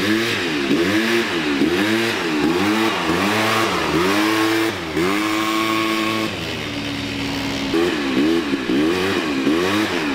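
Sport quad bike engine blipped up and down in quick repeated revs, about one and a half a second, as the rider holds it up on its back wheels. About five seconds in the revs hold briefly, then drop to a lower steady run before the blipping starts again.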